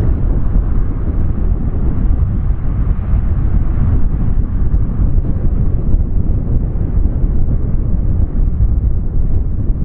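Lockheed C-130H Hercules' four Allison T56 turboprop engines, a loud, steady deep rumble.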